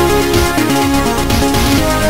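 Amiga demo soundtrack: electronic tracker music with a steady beat and a stepping bass line under a synth melody.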